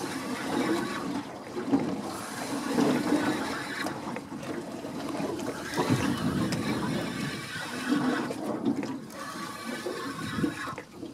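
Water sloshing and surging against the side of a boat, in uneven waves, with a faint steady hum underneath.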